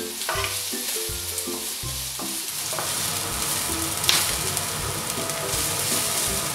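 Sliced red onion sizzling in hot oil in a nonstick wok, stirred and pushed around with a wooden spatula. The frying hiss grows fuller after about two and a half seconds.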